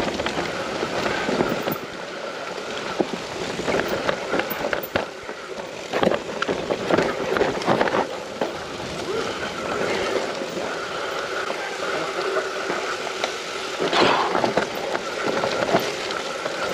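Mountain bike riding down a rough trail: tyres rolling over dirt and stones, with knocks and rattles from the bike over bumps, a few hits louder than the rest.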